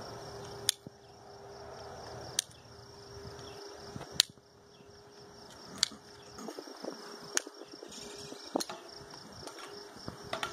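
Hoof nippers snapping through a horse's front hoof wall during a trim: six sharp snaps, one every second and a half to two seconds, over a steady background of insects.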